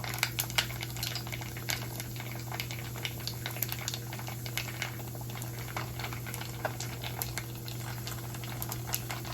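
Dried pork jerky frying in hot oil in a pan, crackling with many scattered pops over a steady low hum.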